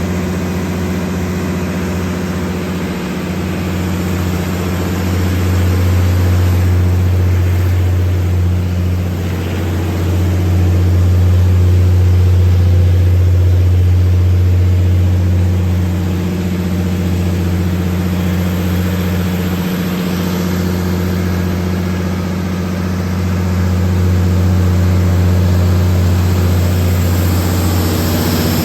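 MTU/Detroit Diesel 12V2000 V12 diesel engine of a Kohler 750 kW generator set running at its steady governed speed: a loud, even low drone that swells and eases slightly but never changes pitch.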